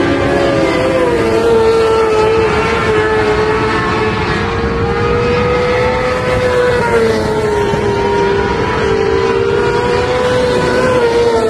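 Several motorcycle-engined mini sprint cars lapping a dirt oval at high revs. Their engines make a steady, high, buzzing note that dips and rises slightly in pitch.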